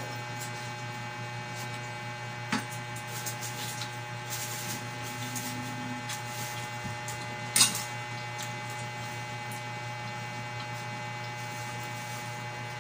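Steady electrical hum in a small room, with two sharp clicks, a small one about two and a half seconds in and a louder one near the middle, and faint scattered ticks between them.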